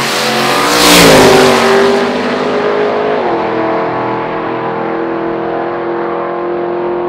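Twin-turbo LS V8 of a drag-racing Holden Commodore running hard, loudest about a second in. Its pitch then drops in two steps and holds steady.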